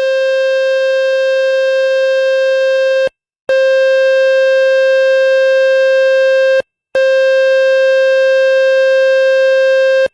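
Loud, buzzy electronic test tone of about 500 Hz played by a speaker water-ejection tool, in bursts about three seconds long with short gaps between them. The tone is meant to vibrate water and dust out of a phone's speaker.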